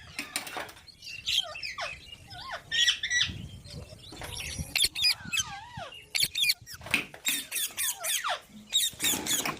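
Pet green parrots calling in a rapid, irregular series of short squawks and chirps, many gliding up and down in pitch, with harsher screeches crowding together in the second half.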